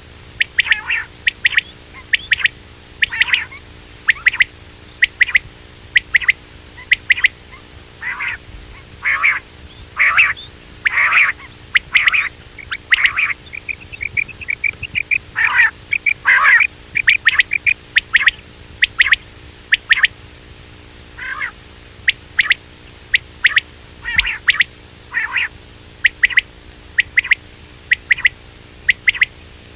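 Quail calling: short, sharp notes given singly and in quick irregular runs throughout, over a faint steady hum.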